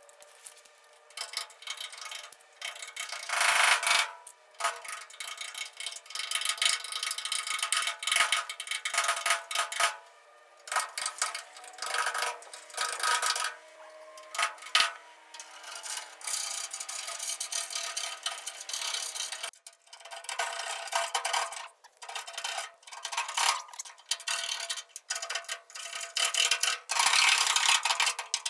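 Hand scraping of hardened undercoating off the rusty sheet steel of a 1974 Ford F250 cab, in irregular rasping strokes broken by short pauses.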